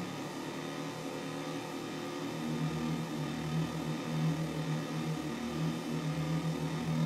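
DIY LM13700 synthesizer oscillator putting out a square wave with pulse-width modulation: a steady low buzzing drone whose tone wavers slowly as a knob is turned.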